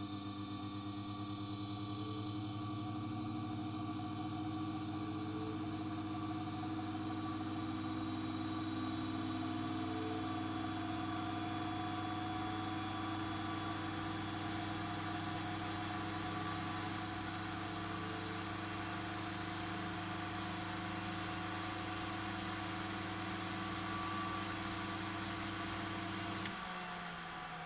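EBM-Papst W2E200 80 W AC axial fan spinning up on 60 Hz mains: a steady electrical hum under rising air noise, with a thin tone that climbs slowly in pitch as the fan gains speed. Near the end there is a sharp click, and the hum drops out while the air noise carries on.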